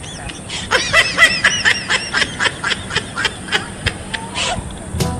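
High-pitched giggling laughter in quick repeated bursts, about four a second, following a fart-sound prank.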